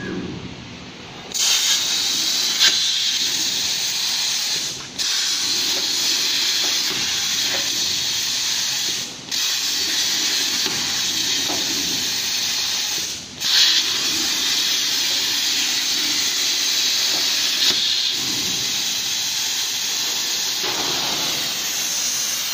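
CNC plasma cutter's torch cutting thin sheet metal: a loud, steady hiss from the plasma arc that starts about a second and a half in. It cuts out briefly three times as the arc stops and restarts for each new contour, three holes and then the outer edge of the part.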